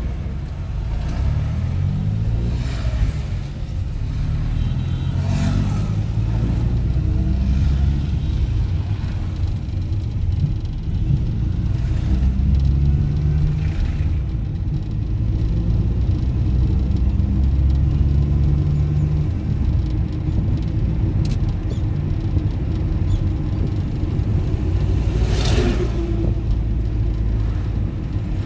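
Car driving along a road, with a steady low engine and road rumble whose pitch shifts up and down with the revs. A brief louder noise passes near the end.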